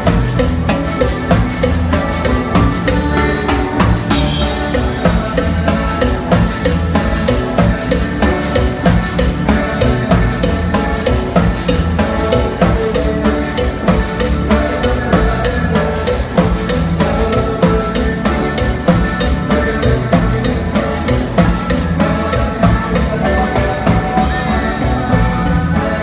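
Live cumbia band playing loud dance music, with congas and timbales driving a steady beat, recorded close to the stage. A bright hiss of cymbal-like noise rises about four seconds in and again near the end.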